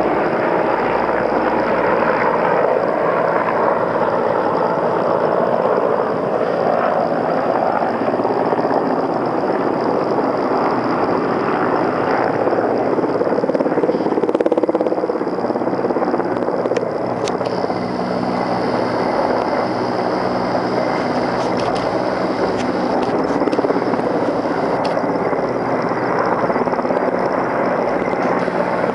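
Helicopters flying overhead: a steady rotor and engine noise whose pitch slowly shifts as they pass.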